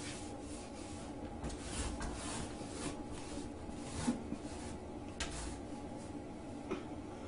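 Woven rag rug dragged in short tugs across a tile floor toward the gap under a door, a series of soft scraping rustles, with a sharp knock about four seconds in and two lighter clicks later.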